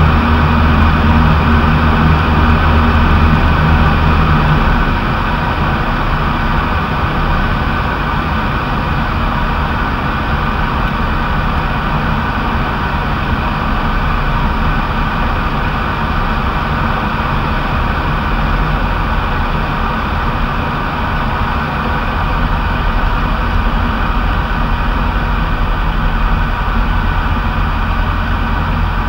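Light aircraft's piston engine and propeller droning steadily in cruise, heard from inside the cockpit along with the rush of air. The low part of the engine note eases off a little about five seconds in, then holds steady.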